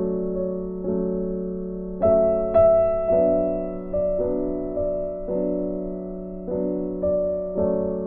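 Soft background piano music: chords struck about once a second, each fading before the next.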